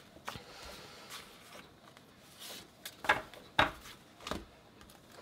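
Paper sticker sheets being handled: a faint sliding rustle as they are moved off a tabletop, then a few short, sharp paper-handling sounds about three to four seconds in.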